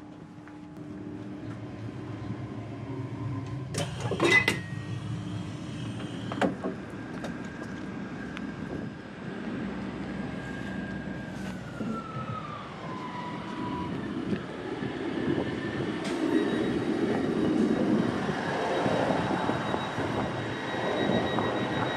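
Passenger train running into its terminus, heard from on board: rumbling with a burst of sharp clanks about four seconds in and a whine that falls in pitch about halfway through, the noise growing busier toward the end.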